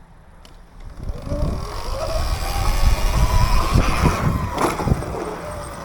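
Dirt bike run up to a jump at full throttle: its motor whine climbs steadily over about three seconds under a heavy rumble, with a couple of sharp knocks as it hits the ramp and lands, then the pitch falls away near the end.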